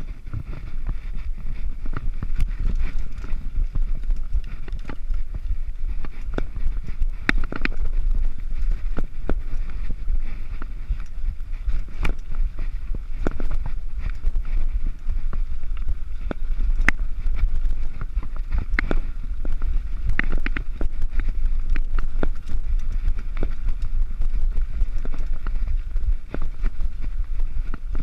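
Mountain bike riding fast down a rough dirt and gravel trail, heard from a chest-mounted camera: a steady low wind rumble on the microphone under tyre noise, with frequent sharp clicks and rattles from the bike over the bumps.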